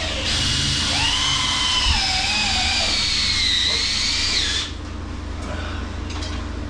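Power drill driving a long screw up into the wood of a ceiling beam: the motor whines, sags in pitch under load, then stops suddenly about four and a half seconds in.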